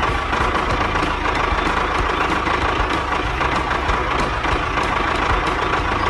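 Steady tractor engine sound, a fast low chugging rumble that runs at an even level while the miniature tractor drives along.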